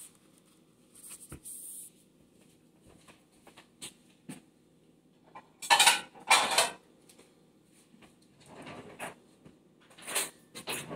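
Kitchen handling noises: a soft paper-towel rustle about a second in, scattered small knocks, then two loud clatters of dishes and cabinetry about six seconds in, with more knocks near the end.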